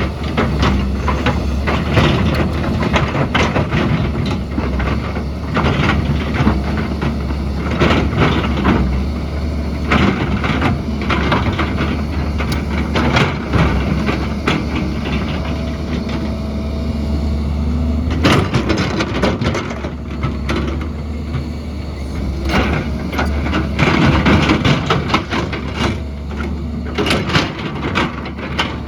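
Hydraulic excavator digging into rocky ground: diesel engine running steadily under many sharp knocks and scrapes of the bucket against rock and stones.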